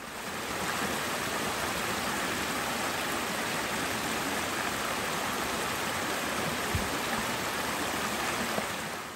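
Small mountain stream pouring over a rock ledge into a shallow pool: steady rushing and splashing water.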